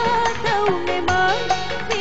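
Dangdut music playing: a melody that slides and bends between notes over a steady, even beat.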